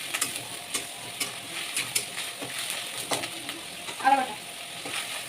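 Food sizzling as it fries in a pan, stirred with a spatula that clicks and scrapes against the pan several times. A brief higher-pitched sound stands out about four seconds in.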